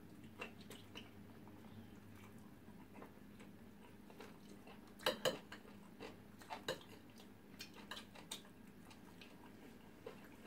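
Metal forks clinking and scraping on a plate of rice and stew, with quiet chewing. Scattered light clicks, the loudest a quick pair about five seconds in.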